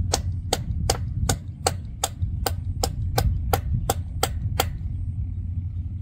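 Hand hammer striking metal on an electric pole in a steady series of sharp blows, about thirteen at roughly three a second, stopping near the end, over a steady low rumble.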